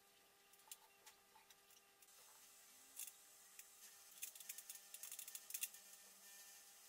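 Near silence with faint scattered clicks, then a quick run of small clicks about four to six seconds in, from hands handling the wall bracket and a tube of caulk.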